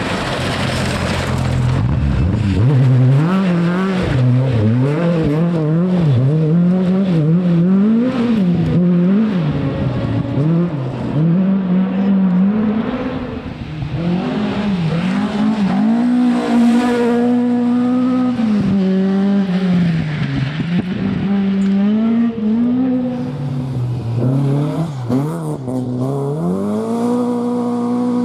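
Rally car engine driven hard, its revs climbing and dropping again and again through gear changes and braking, with some tyre noise. Near the end it holds a steadier note that slowly rises.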